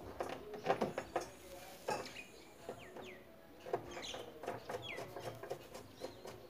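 Sharp clicks and knocks, loudest in the first two seconds, as a screwdriver drives screws through a metal wall-mount bracket plate into the back of an LED TV. Birds call and chirp in the background.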